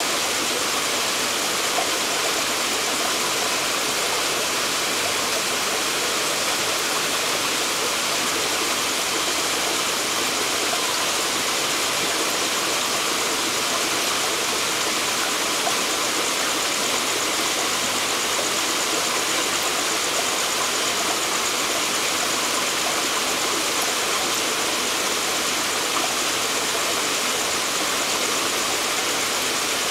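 Steady hiss and trickle of aquarium aeration: air bubbles from an air line in a box filter rising and breaking at the water surface.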